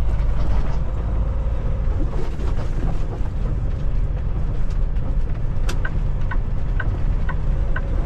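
Semi truck's engine running with a steady low rumble inside the cab. About three-quarters of the way in, the turn signal starts ticking at about two ticks a second, for the right turn.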